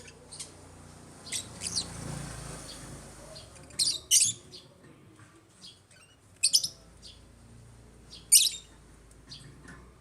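African lovebirds giving short, high-pitched chirps and squawks in separate bouts about every two seconds, with quiet gaps between.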